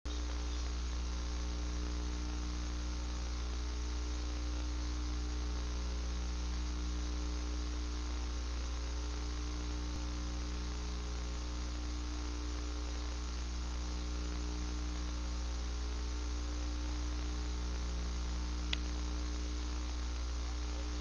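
Steady electrical mains hum with hiss, raised by boosting the volume of a recording made on a camcorder with failing batteries. A single faint click sounds near the end.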